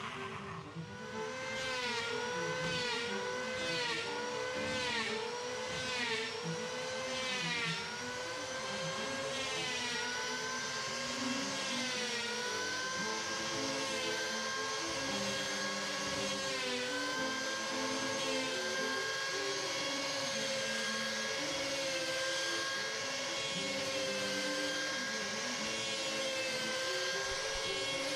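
Electric hand planer running and shaving the edge of a plywood hull. Its motor whine dips in pitch each time the blades bite, roughly once a second for the first several seconds, then holds steadier through a longer pass.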